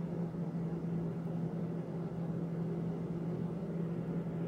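A steady low mechanical hum with a constant low tone and a fainter steady buzz above it, unchanging throughout.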